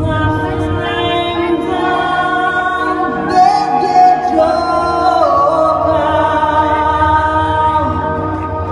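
Music with singing: a voice holding long notes that slide from one pitch to the next over a sustained low backing.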